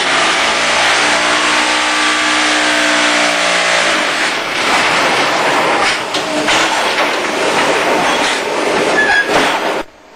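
Concrete block making machine running: loud continuous mechanical clatter, with a droning hum over the first four seconds. The sound drops off sharply just before the end.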